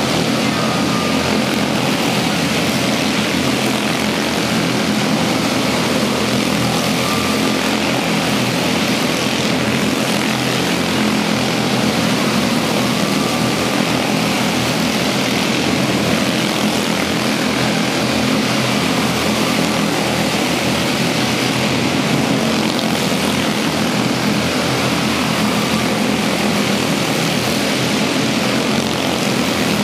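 A pack of quarter midget race cars running flat out around an indoor track, their small single-cylinder engines blending into one steady, continuous buzzing drone that echoes in the large hall.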